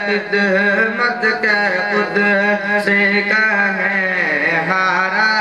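A boy's voice singing a devotional salaam to the Prophet into a microphone, amplified, in a wavering melodic chant with long held, ornamented notes.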